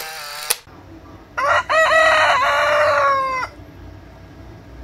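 A rooster crowing once: a cock-a-doodle-doo of a few short broken notes running into one long held note, about two seconds in all.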